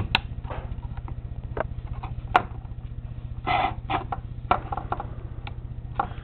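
Handling noise from a graphics card being turned over in the hand: scattered small clicks and taps, with a couple of brief rustles about three and a half to four seconds in, over a steady low hum.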